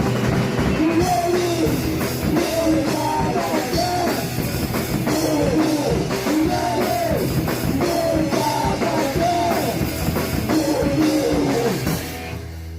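Crust core (crust punk) band playing loud, fast, distorted rock with a driving drum kit and bending melodic lines over it. Near the end the playing drops away to a low held note.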